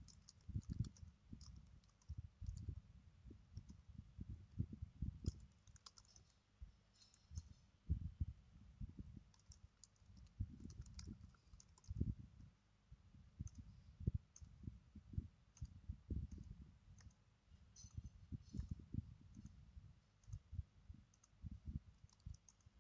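Computer keyboard being typed on: faint, irregular keystrokes in short bursts with brief pauses between them.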